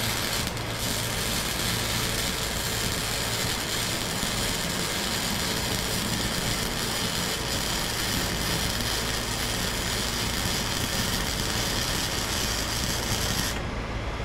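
MIG welding arc crackling and sizzling steadily as a bead is run around a steel exhaust pipe that the welder calls dirty metal. The arc cuts off abruptly near the end when the trigger is released.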